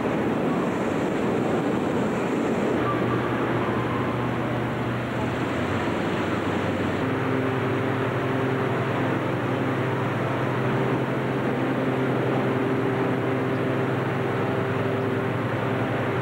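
Steady loud drone of engine-driven hot-air balloon inflator fans running in a large hangar, a dense wash of fan and engine noise with no pauses. About seven seconds in a steadier, deeper engine hum comes to the fore.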